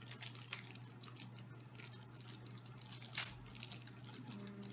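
Small toy blind-pack packaging crinkling and tearing under the fingers as it is opened by hand, in scattered crackles with the sharpest one about three seconds in. A faint steady hum lies underneath.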